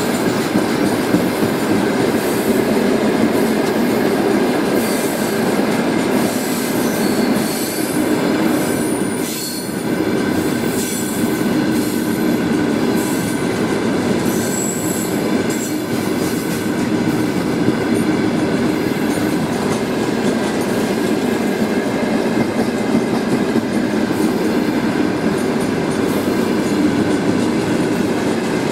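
Freight hopper wagons rolling past close by, a steady noise of steel wheels on the rails with faint irregular clacks. Short high-pitched wheel squeals come in here and there.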